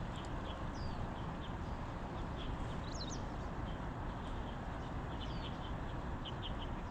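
Small birds chirping in short, high notes, a few of them sliding quickly down in pitch, over a steady background rush of noise.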